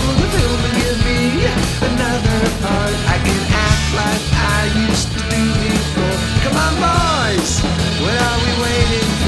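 Rock trio playing: distorted electric guitar with bending lead notes over bass guitar and a drum kit with cymbals.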